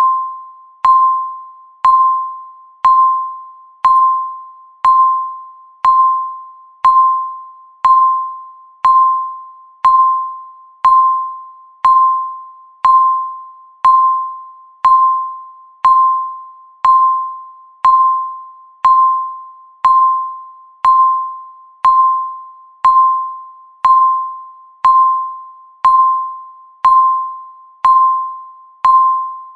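Countdown timer's electronic beep sounding once a second, about thirty times. Each beep is a single mid-pitched, chime-like tone that starts sharply and fades away before the next, one beep for every second ticking off the countdown.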